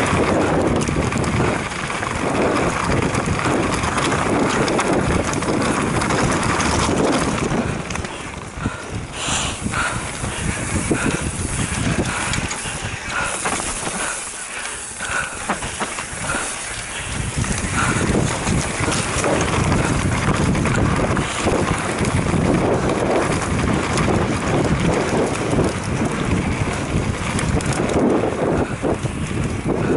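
Mountain bike descending a rough dirt and gravel trail: wind rushing over the microphone, with the tyres crunching and the bike rattling over stones and bumps. It eases off for several seconds in the middle, then comes back up.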